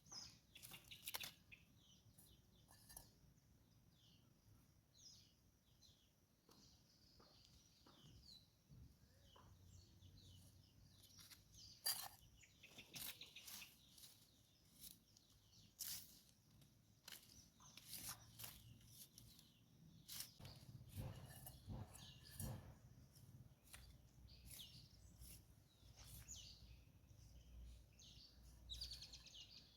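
Near silence, with faint, scattered bird chirps coming at irregular intervals.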